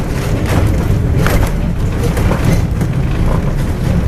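Old Lisbon electric tram running along its rails, heard from inside the front of the car: a steady low rumble with rattles and clicks about half a second and about one and a half seconds in.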